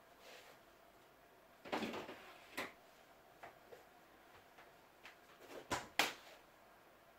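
Faint kitchen clatter: a handful of short knocks of things being handled and set down, the loudest about six seconds in.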